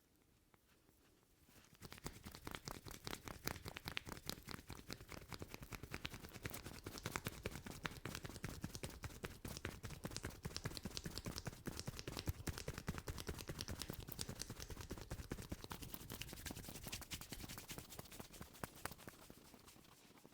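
Head massage with rapid, continuous tapping of hands on the head, many light strikes a second. It starts about two seconds in and eases a little near the end.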